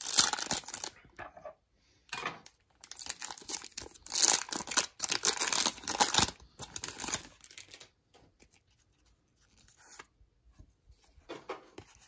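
Foil Pokémon Crown Zenith booster pack being torn open by hand, with the wrapper crinkling. Several bursts of tearing and crinkling, the loudest in the middle, then only faint handling of the cards near the end.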